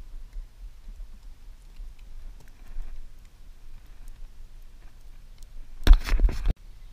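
Faint clicks and rustles of hands working fishing line close to the camera over a steady low rumble, then about six seconds in a loud half-second of rubbing and scraping noise as the camera itself is handled, cutting off abruptly.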